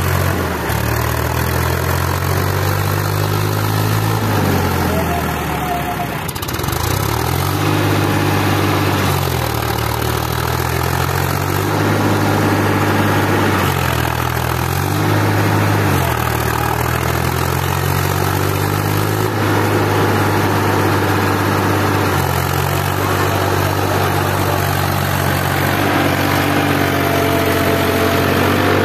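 Massey Ferguson 7250 DI tractor's diesel engine running hard while stuck in deep mud, its revs rising and dropping back again and again as the driver tries to drive it free.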